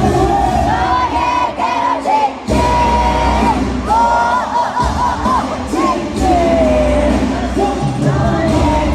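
Live K-pop song played loud through an arena sound system with a steady bass beat and a sung melody line, the bass dropping out briefly twice. The crowd cheers along.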